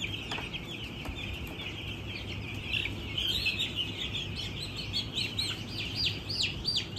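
A flock of eight-day-old broiler chicks peeping: a dense chorus of short, high, falling cheeps that grows busier from about three seconds in.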